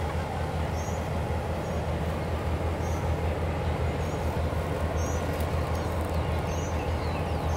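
Diesel locomotive idling at the platform: a steady low engine rumble. Short high bird chirps sound over it about once a second.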